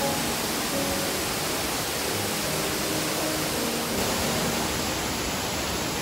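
Wide curtain waterfall's water pouring into its plunge pool: a heavy, steady rush. Soft background music sits faintly under it.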